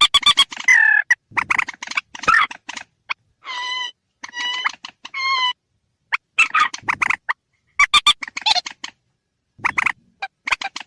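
A rail's lure call played from a recording: bursts of rapid, harsh clucking notes, with three longer, even-pitched calls in the middle and short silent breaks between phrases.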